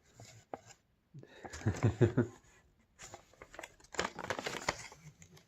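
Cardboard and paper packaging rustling and crinkling as it is handled, with a brief mumbled voice.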